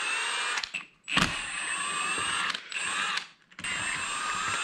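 Milwaukee Fuel cordless impact wrench running in short bursts of about a second each, its whir rising in pitch as it spins out bolts on the NP435 transmission's top cover.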